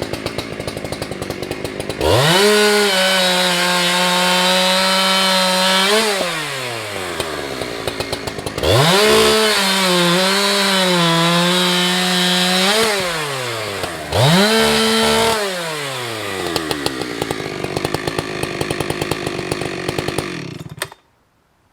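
Two-stroke chainsaw idling, then opened up to full revs three times, the longest stretches about four seconds each, dropping back to idle in between. The engine is then shut off and stops suddenly near the end.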